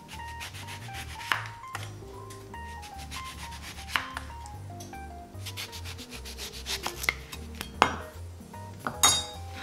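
Kitchen knife sawing through an orange's peel and flesh, with short rasping strokes and a few sharp knocks as the blade meets the wooden cutting board, slicing the fruit into rounds. A light electronic background tune plays underneath.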